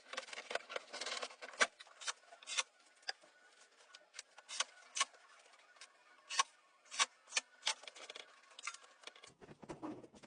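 Irregular light clicks and taps, some sharper than others, with faint rubbing between them.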